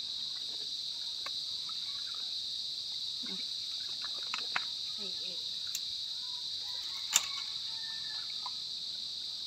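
Steady high-pitched chorus of insects, with a few faint distant voices and a sharp click about seven seconds in.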